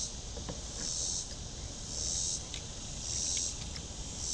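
Insects buzzing in rhythmic high-pitched pulses, about one every second, with a few faint small clicks of hand work on wiring.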